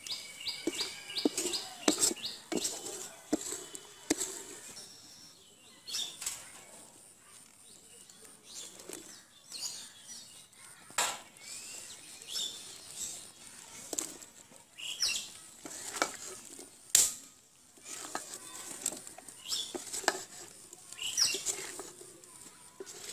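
Wooden spatula scraping and knocking against a large metal cooking pot as a thick spice paste, then potato and drumstick pieces, are stirred, with birds chirping now and then in the background.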